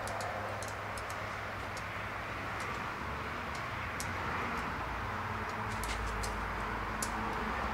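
Faint light metal ticks and clicks as hydraulic lifters are worked down into their bores in a cast-iron Jeep 4.0 engine block, over a steady low hum of background noise. The ticks come more often near the end.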